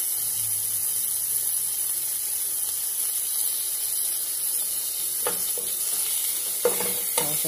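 Sliced beef and chicken frying in hot oil with onion in a large metal pot, a steady sizzle. A metal spatula clicks against the pan a few times near the end as the meat is stirred.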